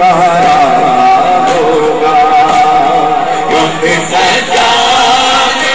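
A man chanting a noha, an Urdu lament, into a microphone, holding long sung notes, with sharp beats about once a second behind the voice.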